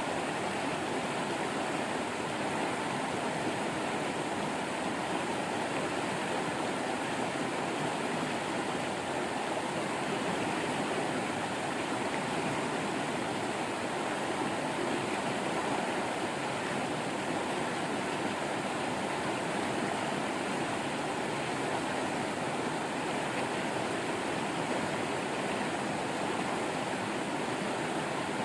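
Running water of a waterfall, a steady, even rush with no breaks.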